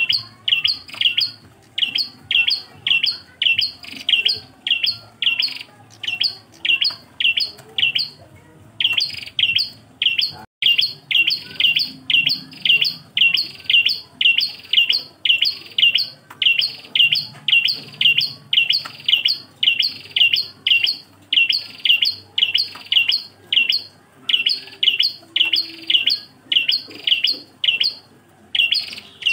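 A single prenjak klawu calling: a quick, steady series of short, high chirps, about three a second, broken by a brief pause about nine seconds in and again near the end.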